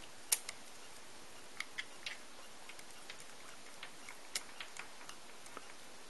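Scattered small plastic clicks and taps, the loudest just after the start, from the mounting ring and clips of an Antec Kühler H2O 620 liquid cooler's pump head being handled and pressed to snap into place.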